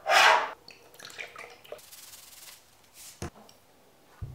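A loud, brief rubbing swish at the start, then faint scrapes, a sharp click, and a short low thump near the end as a glass shot glass is set down on a kitchen countertop.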